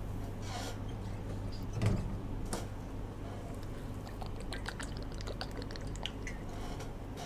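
Faint steady low hum with scattered light clicks and taps, thickest a few seconds in.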